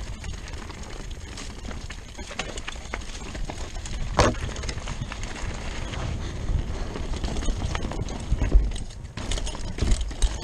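Rockrider 540s ST mountain bike clattering over a rough dirt trail at speed: a dense run of knocks and rattles from the bike as it hits bumps, over a steady low rumble, with harder knocks about four seconds and eight and a half seconds in.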